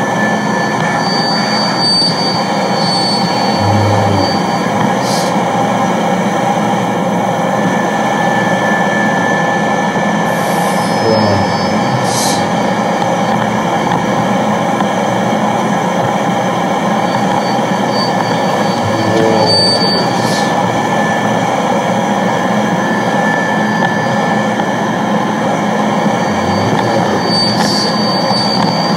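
A loud, unbroken wall of harsh noise, like a rumbling subway car, with thin high squeals that flicker in and out.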